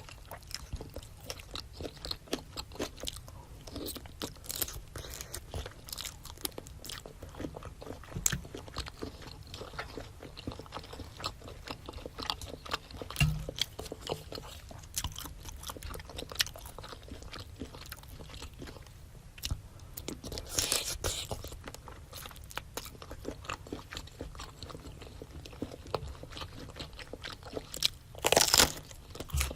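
Close-miked chewing and biting of a spicy seafood boil with octopus, shrimp, scallops and rice cake: a steady run of short wet clicks and crunches, with a louder noisy burst shortly before the end.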